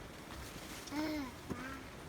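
A baby babbling: one drawn-out syllable whose pitch rises and falls about a second in, then a shorter, lower one, with footsteps.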